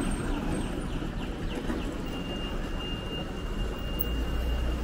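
Backstreet city ambience: a low steady hum of traffic and general bustle, with a few short high chirps early on and a thin, steady high whine that starts about two seconds in.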